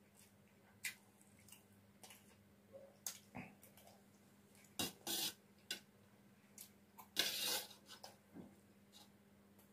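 Metal spoon clicking and scraping against a steel plate as fried rice is scooped up and eaten: a few separate clicks and two longer scrapes, the louder one about seven seconds in.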